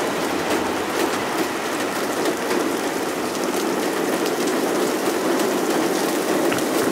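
Heavy rain in a summer thunderstorm downpour: a steady, dense hiss with many sharp little taps of drops landing close by.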